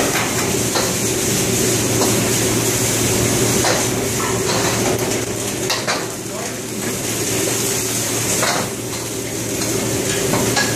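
Commercial wok ranges with their burners and extraction hood running steadily, while metal ladles clank and scrape in woks every second or two and food sizzles over the flames.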